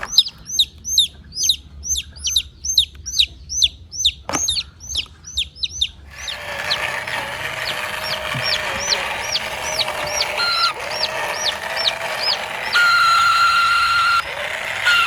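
Baby bird peeping over and over, about three to four short falling peeps a second. About six seconds in, a steady mechanical hum joins underneath and the peeps slow down; near the end a steady whine holds for about a second.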